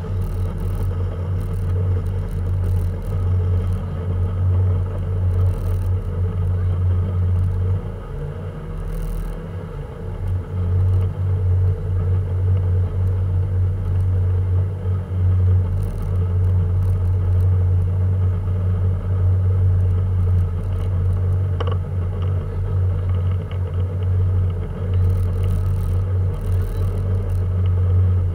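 Small motorboat's engine running under way, a steady low drone with water rushing past the hull. The drone drops for a couple of seconds about eight seconds in, then comes back up.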